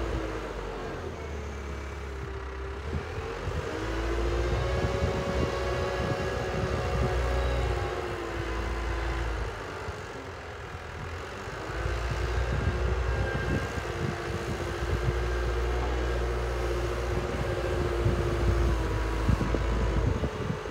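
Cat 907H compact wheel loader's diesel engine running close by, its revs rising and falling several times as the machine drives and works its snowplow.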